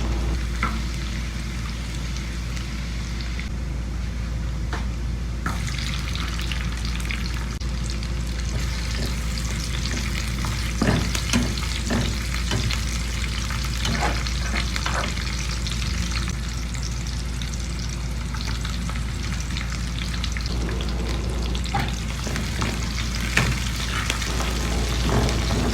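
Chicken sisig ingredients sizzling in a hot pan while being stirred, with scattered clicks and scrapes of the utensil against the pan. A steady low hum runs underneath.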